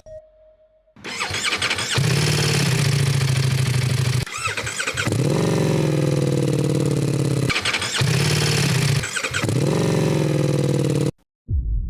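Ducati Multistrada V4S's V4 engine through an Akrapovic race exhaust, running loud in several cut-together clips. It comes in about a second in, and after breaks about four and nine seconds in its pitch falls away from a rev. It cuts off suddenly near the end.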